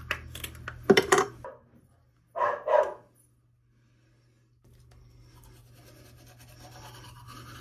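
Plastic toothbrush packaging crackling, with a sharp snap about a second in, then a short dog bark. From about halfway comes the faint, steady scrubbing of a toothbrush on teeth.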